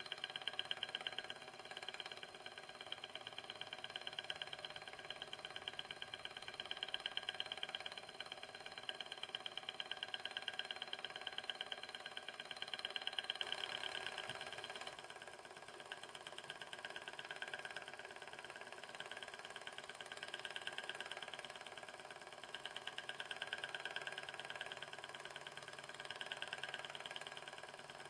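Böhm HB7 In Line Runner model Stirling engine running: a fast, even mechanical ticking of its pistons and flywheels that swells and fades gently every few seconds.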